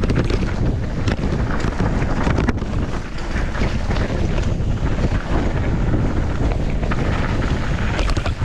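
Wind buffeting a GoPro 10's microphone during a fast downhill mountain-bike descent, over tyres running on dry dirt, with frequent knocks and rattles from the bike over rough ground.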